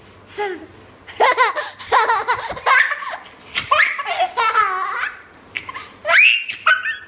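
Young child laughing hard in repeated bursts, with a high-pitched squeal near the end.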